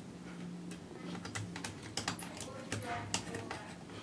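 Irregular light clicks and taps of fingers and hands on a tablet's aluminium back casing as it is pressed and handled, with one sharper click near three seconds in.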